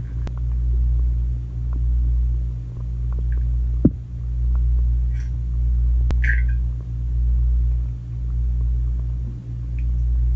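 Low, steady underwater rumble and hum heard through a submerged camera in a pool, swelling and fading about every second and a half, with a few scattered faint clicks.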